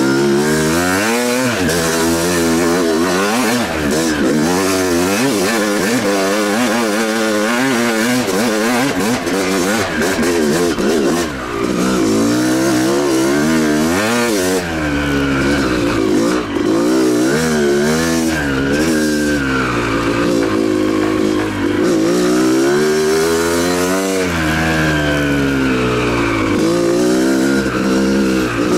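Yamaha YZ250's two-stroke single-cylinder engine revving up and down again and again as the dirt bike is ridden on single track, its pitch rising and falling every second or two under the throttle.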